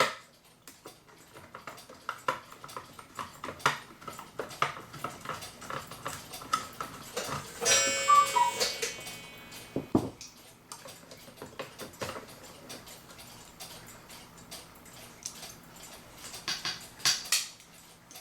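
Small metal clicks and taps, irregularly spaced, from a socket and hands working the nuts off a Master Crafters waterfall clock movement, with a brief high squeak about eight seconds in.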